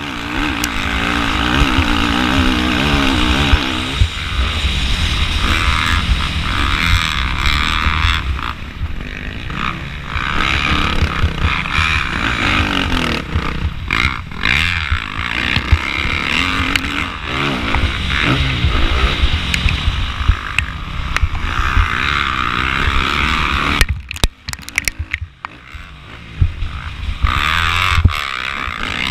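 2013 Suzuki RM-Z450 motocross bike's four-stroke single-cylinder engine under hard riding: revving up and dropping back again and again as the throttle opens and closes through the track. Near the end it falls off throttle for a few seconds, then pulls hard again.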